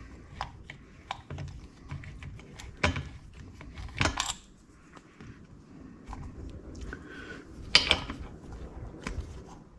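Small metal engine parts and hand tools clicking and clinking as parts are pulled out of a Harley-Davidson Twin Cam engine: scattered sharp taps, with louder knocks about three, four and eight seconds in.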